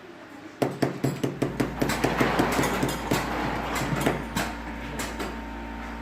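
Vibratory parts feeder running: a steady low hum with a rapid rattle of clicks and knocks, several a second, as parts are fed, the clicking dying away about five seconds in while the hum carries on.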